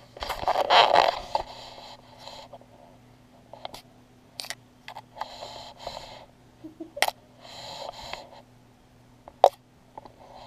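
Close handling noise on a GoPro action camera as a kitten paws and rubs against it on a fleece blanket: fur and fabric scraping over the housing, loudest in the first second or so, with scattered sharp clicks and knocks and further bouts of rubbing later.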